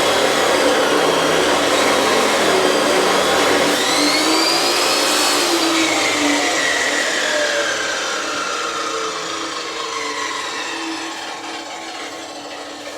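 Power cutting tool cutting through 1¼-inch steel shafting with a loud grinding whine. The whine rises about four seconds in, then drops in pitch and gradually fades.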